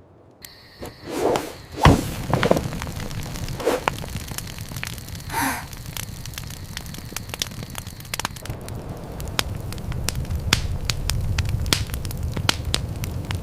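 Wood fire crackling, with many sharp pops over a low steady rumble; a few louder whooshes and cracks in the first couple of seconds.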